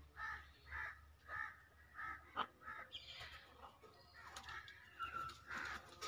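Green-winged macaws calling: a series of short calls about one every half second, then a denser run of calls in the second half, with a single sharp click about two and a half seconds in.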